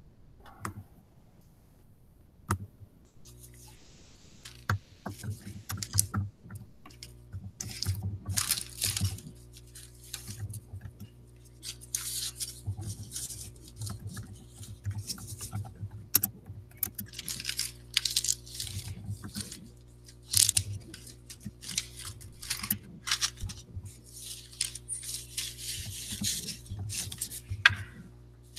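Irregular rustling and clicking noises, a few each second, over a low steady hum, starting a few seconds in.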